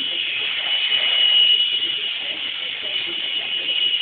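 Helicopter sound from a television: a steady high whine, with muffled voices underneath.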